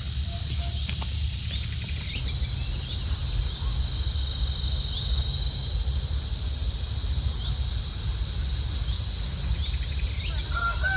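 Insects shrilling in one steady, unbroken high tone, over a low rumble of wind on the microphone.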